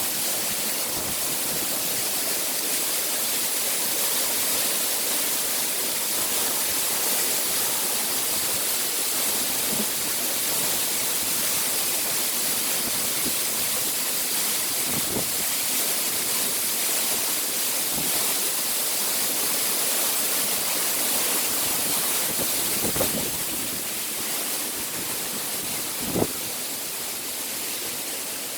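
Forest waterfall rushing steadily, a dense hiss of falling water. A short knock sounds near the end, and the water grows a little quieter in the last few seconds.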